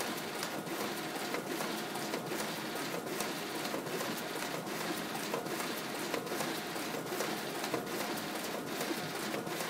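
Production printer running at full rated speed of about 65 pages per minute: a steady mechanical whir with a short swish-click about once a second as each printed sheet is ejected into the output tray.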